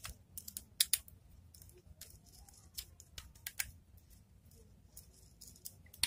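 Irregular light clicks and taps from handling a tester screwdriver on the terminal screws of an electrical contactor, with wires being moved around it. The sharpest clicks fall about one second in and again around three and a half seconds in.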